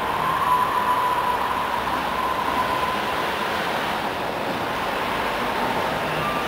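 Distant siren wailing over steady city traffic noise: its tone rises to a high held pitch at the start and slowly fades, then comes back higher near the end.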